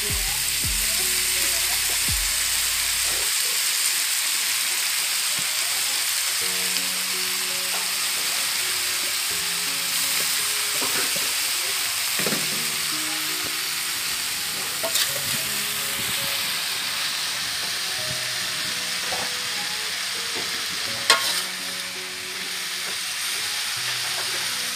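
Chopped cassava leaves, papaya leaves and papaya flowers sizzling steadily in oil in a metal wok as they are stirred with a metal spatula, the greens wilted and nearly cooked. One sharp knock near the end.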